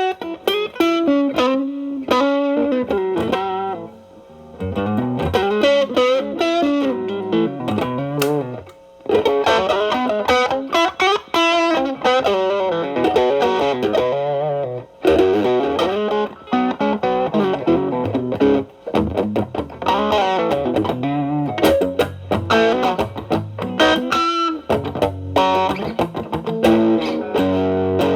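Electric guitar, a Telecaster with single-coil pickups, played through an MXR Distortion+ stacked with a Boss SD-1 overdrive into a Marshall Valvestate amp's clean channel. It plays improvised single-note blues lead lines with string bends and vibrato, with brief gaps near 4, 9 and 15 seconds.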